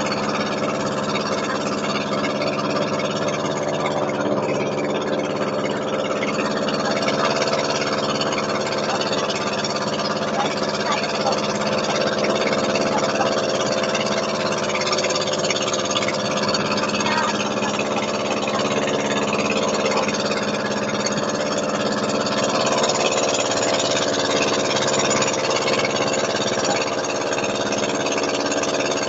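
Engine of a motorized outrigger boat (bangka) running steadily at an even speed.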